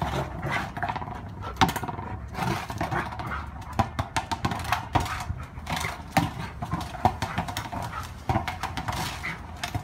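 Rottweiler puppy playing with a rubber ball on patio paving: repeated knocks and scuffs of the ball and the dog's claws on the stone, mixed with the dog's own grunts and low growls.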